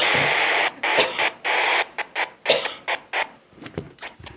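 Weather radio static: hiss cutting in and out in short bursts, fading toward the end.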